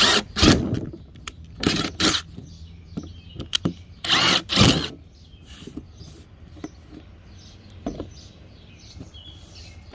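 DeWalt 20V cordless drill running in short bursts as a twist bit bores two small holes through the thin skin of a hollow-core door. There are quick bursts in the first two seconds and two longer ones around four seconds in, then only faint small knocks.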